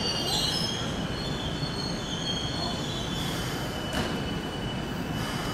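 Keikyu 800 series electric train braking as it pulls into the platform, squealing with several high steady tones over a low running rumble. A sharp click about four seconds in.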